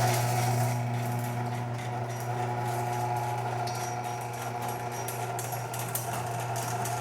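Chain-drive garage door opener running as the door travels: a steady motor hum with the chain clattering lightly along the rail. The chain has just been tightened but still has a little slack.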